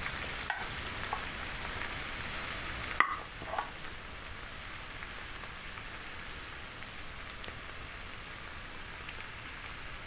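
Wooden spoon scraping fried onions out of a frying pan and spreading them over fish pieces in a skillet, with a few light knocks of the spoon against the pan, the sharpest about three seconds in, over a steady faint hiss.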